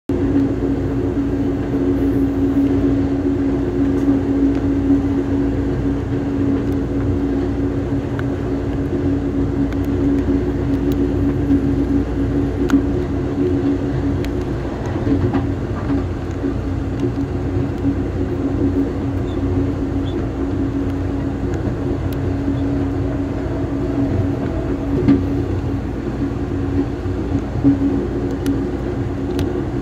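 Amtrak Coast Starlight passenger train running steadily along the track: a continuous low rumble of wheels on rail with a constant hum, and scattered light clicks and rattles.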